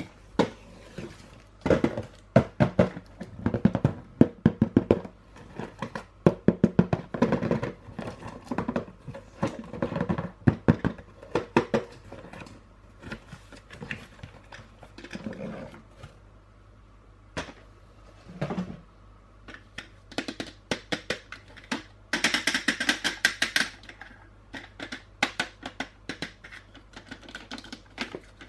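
Plastic toys and packaging being handled: irregular clicks, knocks and rattles, with a denser crackling stretch about 22 seconds in.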